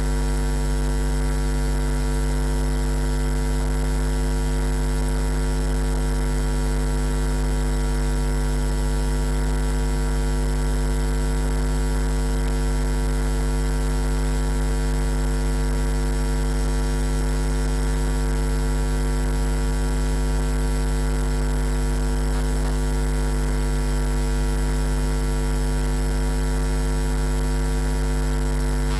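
Steady electrical mains hum: a low drone with a ladder of higher steady tones above it, unchanging throughout.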